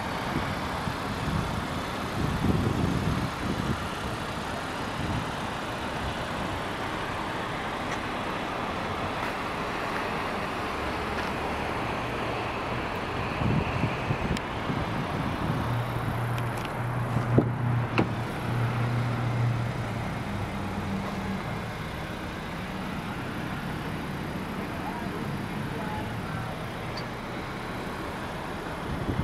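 Steady outdoor road traffic noise, with a vehicle's low engine hum rising in the middle and fading away, and two sharp clicks about halfway through.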